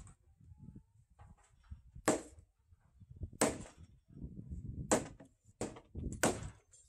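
Heavy wooden blows on timber joinery as a squared beam is driven down into the notched joint on a post. There are about five dull knocks, the first ones a second or more apart and the last ones coming faster.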